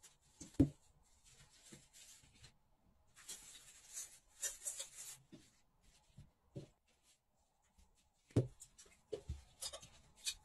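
Plastic wrapping and paper crinkling and rustling in stretches as a small aerial firework shell is unwrapped by hand, with a few soft knocks, the loudest near the end.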